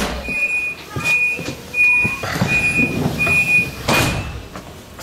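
Door-closing warning on an S-Bahn passenger coach: a high beep repeated six times, a little under a second apart, with a rumbling underneath, then the doors shut with a loud bang about four seconds in.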